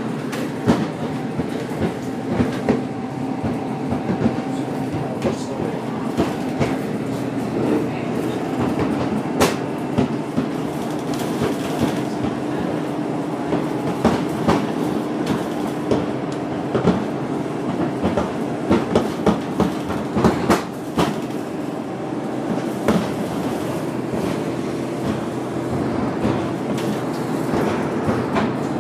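Inside a moving bus: a steady engine and road drone with several humming tones, overlaid by frequent sharp clicks and rattles, thickest about twenty seconds in.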